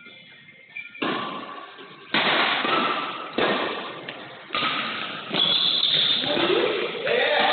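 Badminton rally: racket strikes on the shuttlecock about once a second, each a sudden sharp hit with a long echo in a large hall. Near the end a rising pitched sound joins in.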